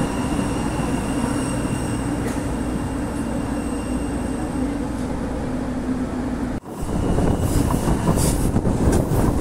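CAF SRV-1 light rail train running, heard from an open window: steady rolling rumble with a low humming tone. About two-thirds of the way in, the sound cuts out for a moment and comes back louder and rougher, with more rushing wind.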